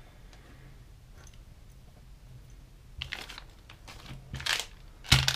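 Plastic soft-bait packets and a lure being handled, slid and set down on a wooden table: a quiet start, then a run of short rustles and taps in the second half, with a sharper, louder one near the end.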